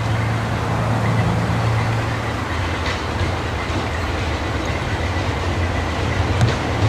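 Heritage diesel-hauled train passing: a steady low engine note fades in the first couple of seconds, then the wheels clatter and rumble over the track, with a few sharp clicks near the end.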